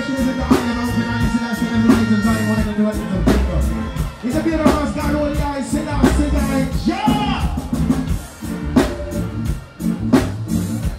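Live reggae band played through a concert sound system, with drum kit, bass and guitar, and a singer's voice over the top.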